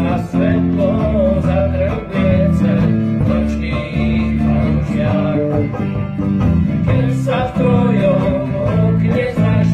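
A country band playing live, with bass guitar, banjo and acoustic guitar, and a man singing the melody over them.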